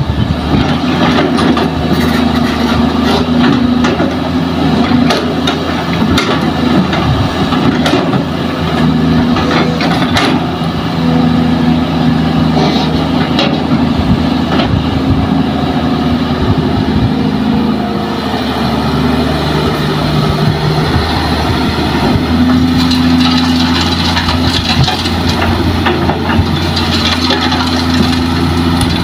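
Kobelco SK200 excavator's diesel engine running steadily under load as it digs sand and loads a dump truck, its note rising and falling every few seconds as the hydraulics work. Scattered short knocks sound over it.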